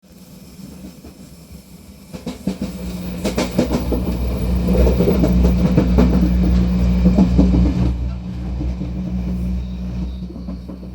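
Diesel multiple unit train heard at the gangway where two coupled sets meet: a steady low engine drone with clattering and knocking from the car connection and wheels on the rails. It grows louder about two seconds in, is busiest with knocks through the middle, and eases after about eight seconds.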